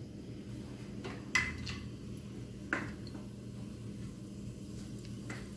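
A few light metallic clinks of a cooking pan and utensils, the two sharpest about a second and a half in and just before the three-second mark, over a steady low hum while oil heats in the pan.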